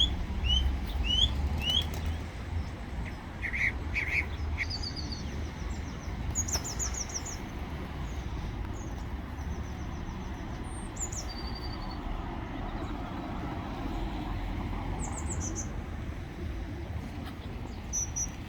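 Birds chirping: short rising chirps in the first two seconds, then scattered quick high trills, over a steady low rumble.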